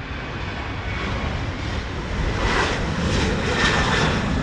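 Jet engines of a Transavia Boeing 737 departing, a steady roar that grows louder as the airliner comes by.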